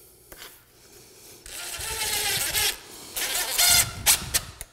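Cordless drill/driver driving screws through a plastic flooring-transition track into plastic anchors in concrete, its motor whining in short bursts with the pitch shifting as the screw tightens, after about a second and a half of near quiet.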